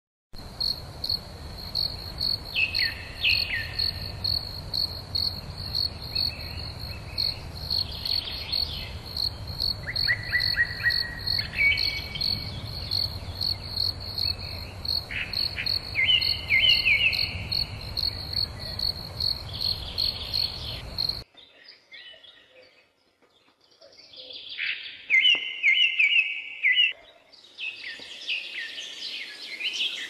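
An insect chirping in a steady, evenly pulsed high tone, with birds chirping over it and a low rumble underneath. About two-thirds of the way through, the insect and the rumble cut off abruptly, leaving only the birds chirping.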